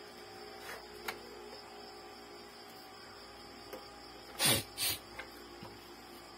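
Hands handling the plastic mechanism of an opened Epson L3110 inkjet printer: faint clicks about a second in, then two short, louder knocks or scrapes about four and a half seconds in, over a steady background hum.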